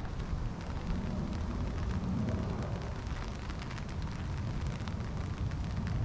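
Light rain with scattered drops ticking, under a steady low rumble of wind buffeting the microphone.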